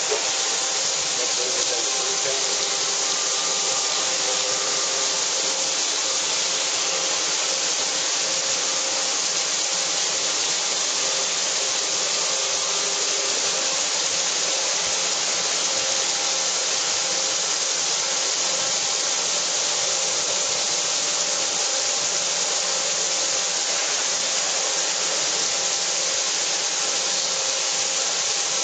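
Mitsubishi MH-50C horizontal machining center face-milling metal blocks under flood coolant: a steady hiss of coolant spray and cutting, with a few steady tones from the spinning cutter in it.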